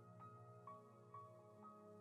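Soft, quiet keyboard music: held chords under a slow melody of single notes, a new note about every half second.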